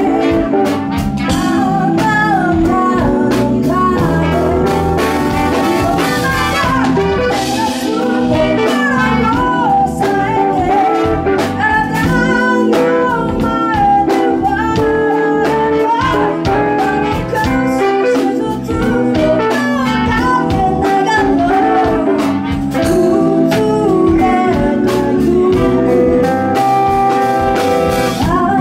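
Live band playing a song: several singers over electric guitars, bass and drum kit, with a steady beat.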